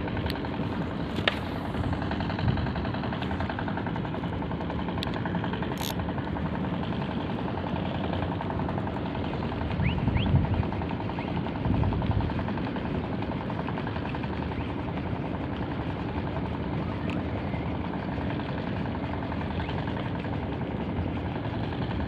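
An engine drones steadily throughout with an even, fine pulsing. A few light clicks sound in the first few seconds, and low thumps come at about ten and twelve seconds in.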